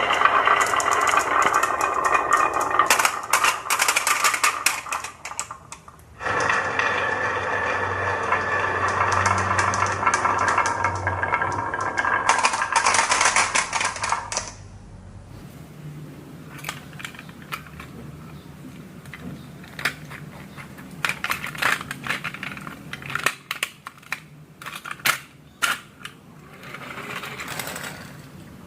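Many marbles rolling and clattering down marble run tracks, a dense rattle that cuts off sharply and restarts, then drops to scattered single clicks of marbles knocking against track pieces.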